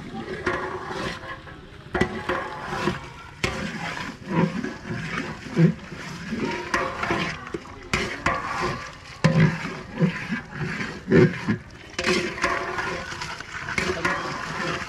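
Rice and water being churned in a large aluminium cooking pot with a long metal paddle, the water sloshing and swirling, with liquid poured in from a plastic jug. Several sharp knocks of the paddle against the pot stand out, a couple of seconds in, near the middle and at about eleven seconds.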